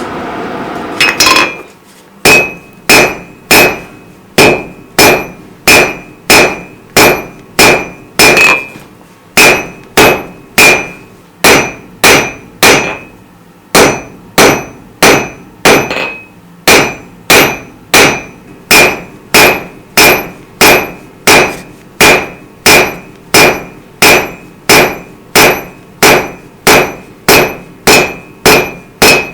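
Rounding hammer striking hot steel on an anvil in a steady, even rhythm, about one and a half blows a second, each blow ringing. A steady noise is heard for the first second or so before the hammering starts.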